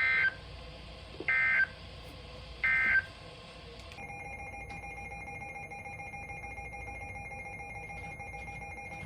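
Three short bursts of EAS (SAME) digital data, about 1.3 s apart: the end-of-message code that closes a NOAA Weather Radio warning. From about four seconds in, a quieter steady electronic tone follows.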